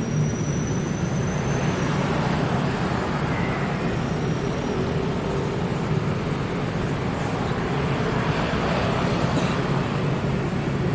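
Steady road-traffic noise, an even rumble of vehicles with a low hum, and a thin high whine during the first two seconds.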